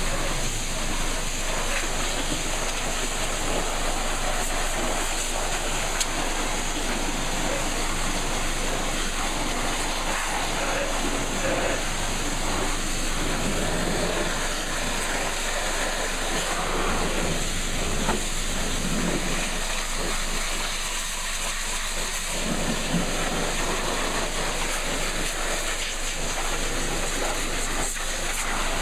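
Pressure-washer wand spraying a steady high-pressure jet of water against a car's engine bay, a constant hiss that barely changes in level.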